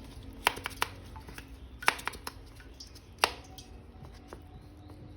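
Hard plastic clicks and taps from a toy action figure and its parts being handled, several sharp clicks in the first few seconds.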